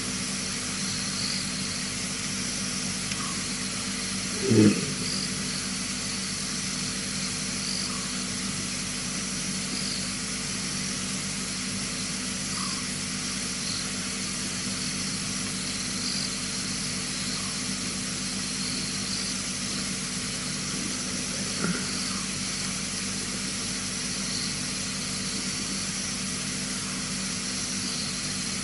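Steady night ambience through a wildlife camera's microphone: constant hiss and a faint hum, with faint high chirps repeating throughout. One short, low call stands out about four and a half seconds in, with a much fainter one near twenty-two seconds.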